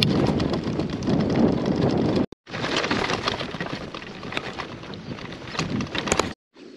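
Bicycle tyres rolling over a rough sandy dirt track, with many small crackles and rattles from the bike over the bumps and wind buffeting the microphone. The sound drops out briefly a little past two seconds in and again near the end.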